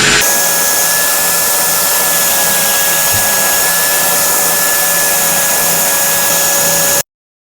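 Handheld 3x21 belt sander, clamped in a vise as a fixed sander, running steadily with a motor whine that steps up a little in pitch just after the start; it cuts off suddenly near the end.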